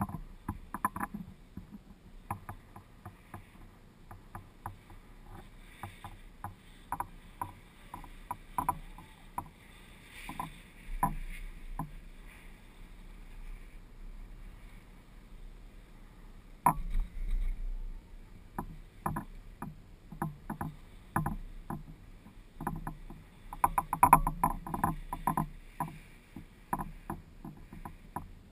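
Chairlift chair creaking and knocking as it rides up the cable: irregular sharp clicks and knocks throughout. A louder clack and a short low rumble come about 17 seconds in, as the chair passes a lift tower.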